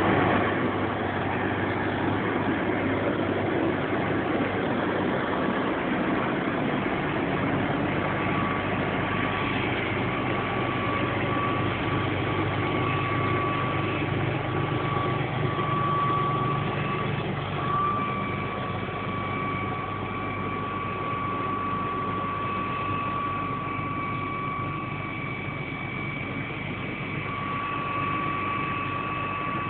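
Massey Ferguson 6480 tractor's diesel engine running steadily under load as it pulls a seed drill through the field. A steady high whine joins in about eight seconds in.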